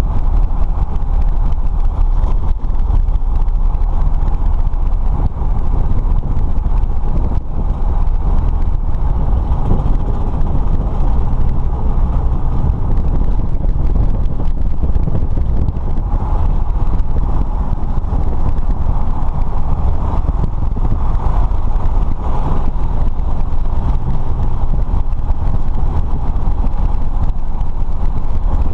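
Light aircraft's piston engine and propeller droning steadily, with no change in pitch or level.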